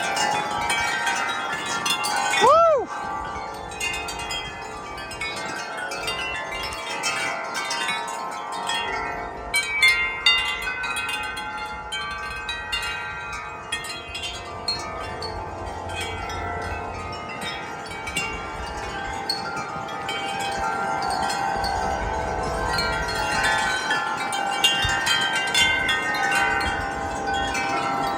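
Wind chime ringing in gusty wind, many metal tones overlapping and swelling and fading with the gusts, with low wind rumble on the microphone at times. About two and a half seconds in, a short whistle swoops up and back down.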